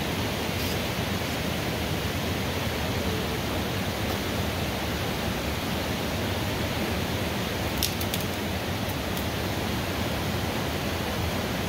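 Steady, even rushing noise outdoors, with a few faint ticks about eight seconds in.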